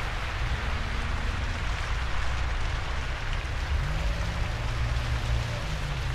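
Steady rain-like hiss over low, sustained bass notes, forming the ambient intro of a song; a new held low note comes in about four seconds in.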